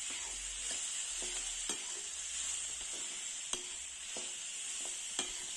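Spiced vegetables sizzling in oil in a kadhai while a slotted steel spatula stirs them: a steady frying hiss with several light clicks and scrapes of the spatula against the pan.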